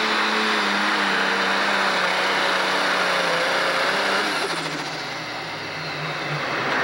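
Turbocharged diesel engine of an Allis-Chalmers pro stock pulling tractor at full power dragging the weight-transfer sled, its note sinking slowly as it labours under the load. About four seconds in the sound changes abruptly, and the engine comes back lower and softer as the pull ends.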